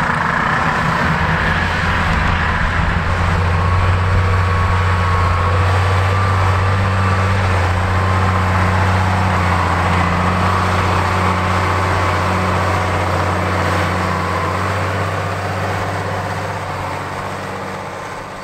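Case IH 8950 Magnum tractor's six-cylinder diesel engine working steadily under load as it pulls a chisel plow through corn stalks, a steady low drone that fades over the last few seconds as the tractor moves away.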